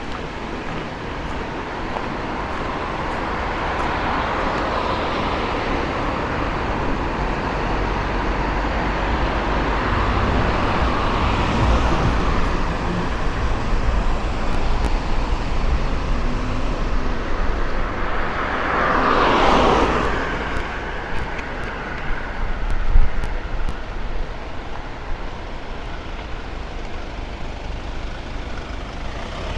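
Road traffic: cars driving past, each one swelling and fading, with one passing especially close about two-thirds of the way in. Shortly after it there is a brief sharp knock.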